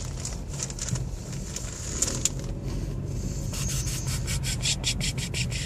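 Rubbing and scraping handling noise from hair and packaging being handled close to the microphone, ending in a quick run of short rustling strokes, about four or five a second, over a low steady hum.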